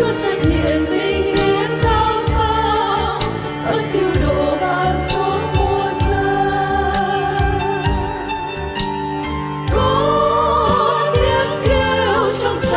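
A church choir singing a Vietnamese hymn over an instrumental accompaniment with a steady beat, the singing getting fuller and louder about ten seconds in.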